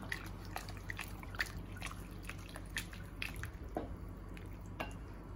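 Thick pig-blood stew (dinuguan) in a stainless steel pot, stirred with a wooden spoon while it cooks: irregular wet pops and squelches, about two or three a second.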